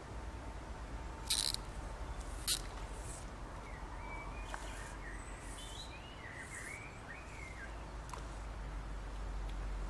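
Fly line swishing through the air twice, a little over a second apart, as a fly rod is cast. Several short bird chirps follow over a steady low rumble.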